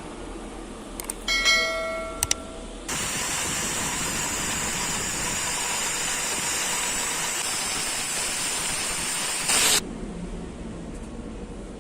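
Stick (SMAW) welding with a 7018 electrode: a couple of ringing metal clinks, then the arc runs for about seven seconds as a steady crackling hiss, with a brief louder burst just before it cuts off.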